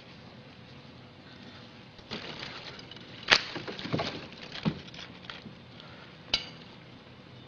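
Dry branches crackling and snapping as they are pulled and broken apart: a burst of cracks and rustling with one sharp loud snap about three seconds in, and a single snap later.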